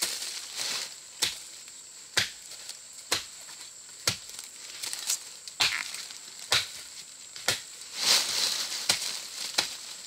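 Rhythmic chopping strikes, about one a second, of a blade cutting into fibrous bamboo shoots.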